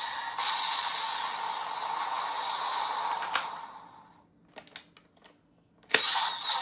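Electronic sound effects playing from a Bandai Vision Driver toy belt's small speaker, dying away a little past halfway. A few light plastic clicks of the toy follow, then a sharp loud click about six seconds in sets off the next sound.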